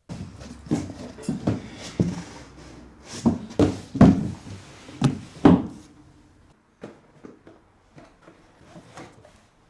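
A run of irregular wooden knocks and thuds, like drawers or cupboard doors being handled in a small room. They are loudest in the middle and thin out to a few fainter knocks near the end.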